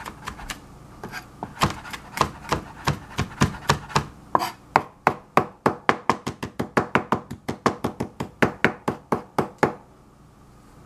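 Chef's knife chopping fresh herbs on a plastic cutting board: quick repeated knocks of the blade, slower at first, then speeding up to about five strokes a second before stopping about ten seconds in.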